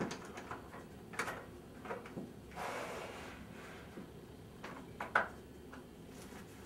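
Knocks and clicks of an Enviroguard BT30 replacement window sash being handled and tilted up into the frame's jamb liners, with a short scrape about two and a half seconds in and a sharper click a little after five seconds.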